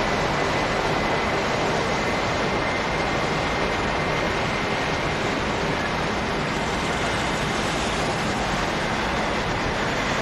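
Airbus A380 jet engines on landing: a steady rushing noise with a faint high whine held through it.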